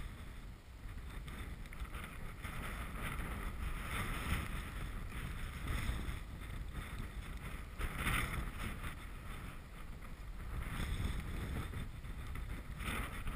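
Strong gusty wind buffeting the action camera's microphone, with dry marsh grass rustling in the gusts.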